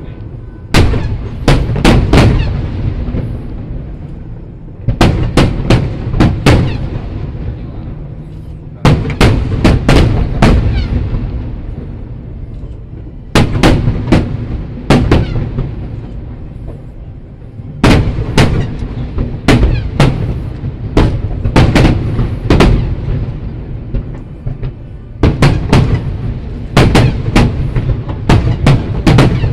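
Aerial firework shells bursting in volleys of several sharp bangs, a new volley about every four seconds, with a low rolling rumble of echoes between them.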